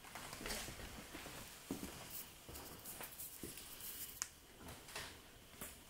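Faint footsteps, scuffs and rustling of clothing and gear, with scattered small clicks, in a small, quiet room.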